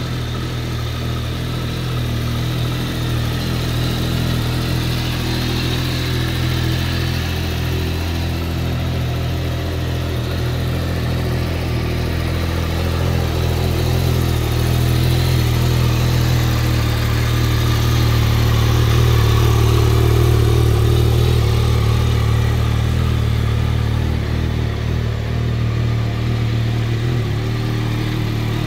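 Yamaha Tracer 9 GT's 890 cc inline three-cylinder engine idling steadily.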